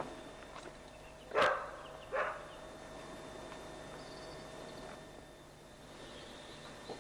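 A dog barks twice, about a second and a half in and again just under a second later.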